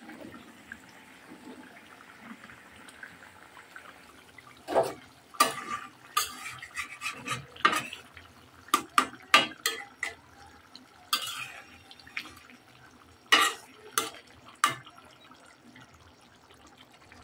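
Metal spatula stirring a thick fish curry in a metal pan. From about five seconds in it scrapes and knocks against the pan in a string of sharp clinks, which stop near fifteen seconds.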